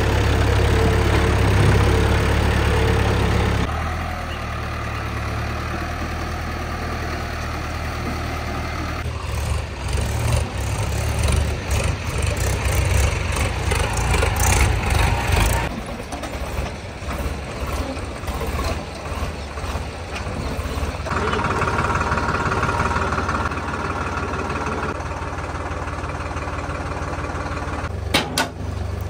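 Tractor diesel engines running, mostly a steady idle-like hum. The sound changes abruptly several times, about 4, 9, 16 and 21 seconds in. Between about 9 and 16 seconds it grows uneven and louder in pulses, as under load or revving.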